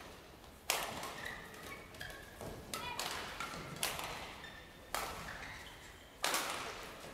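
Badminton rally: five sharp cracks of rackets striking the shuttlecock, irregularly spaced about a second apart, each echoing in a large sports hall. Brief squeaks of court shoes come between the hits.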